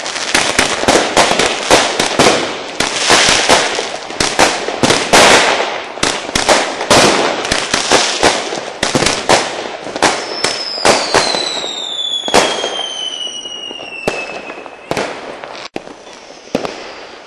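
A rapid barrage of fireworks and firecrackers banging, several bangs a second. About ten seconds in, a long whistle slides down in pitch over several seconds, and the bangs thin out toward the end.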